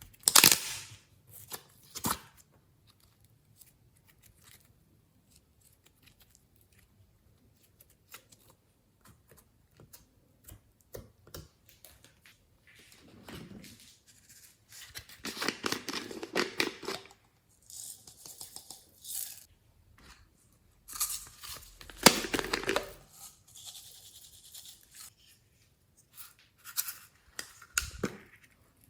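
Slime being squished and stretched by hand, crackling and popping in several short bursts with quiet gaps between, the longest about halfway through and again about three quarters in.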